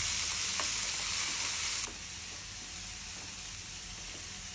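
Chopped onion and tomato sizzling in hot oil in a non-stick frying pan, stirred with a wooden spatula with a few faint taps. The sizzle drops abruptly to a lower, steady level a little under halfway through.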